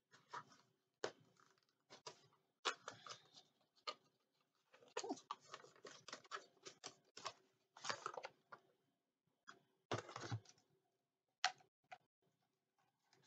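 Rustling and crinkling of packaging as a subscription-box item is unwrapped, with irregular clicks and taps of handling. A longer, fuller rustle comes about ten seconds in and a sharp click shortly after.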